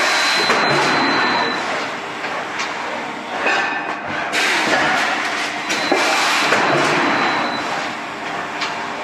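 Automated plastic flower pot production line running: thermoforming, conveyor and hole-punching machinery give a dense clatter of knocks and hiss. The noise swells and eases in cycles of about five seconds, and a faint high whine appears near the start and again about six seconds in.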